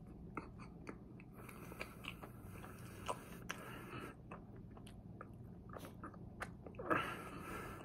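Close-mic'd mouth sounds of chewing a chocolate éclair: soft wet smacks and clicks, with a louder mouth sound about seven seconds in. A faint steady hum sits underneath.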